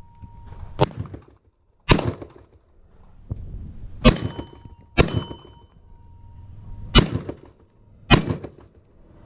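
Six rifle shots from an AR-style rifle, fired singly at an uneven pace of about one every one to two seconds. A faint steady ringing tone lingers between some of the shots.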